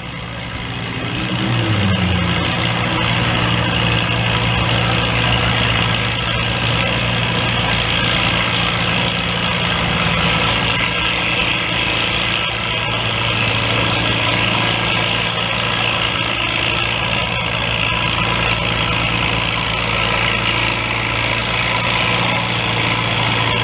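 Vintage farm tractor engine rising in pitch about a second in, then running steadily under full load as it drags a weight-transfer sled down the pull track.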